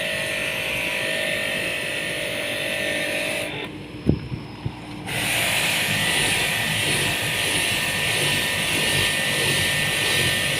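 A pressure washer spraying water in a steady hiss over the running pump motor. About three and a half seconds in the spray stops for a second or so, with a couple of low knocks, then starts again.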